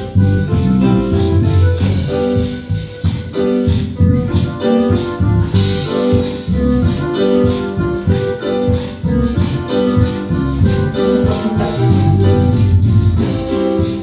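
Instrumental passage of a Christian praise song (alabanza), played as continuous music with a steady rhythm and no singing.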